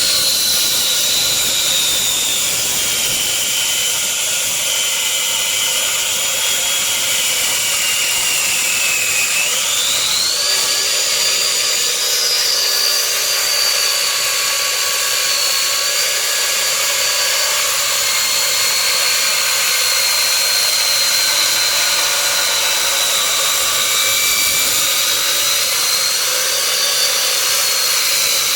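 Brushless electric concrete saw running and cutting, a loud steady grinding noise with a high motor whine. The whine sags slowly in pitch for about nine seconds, then jumps back up and holds steady.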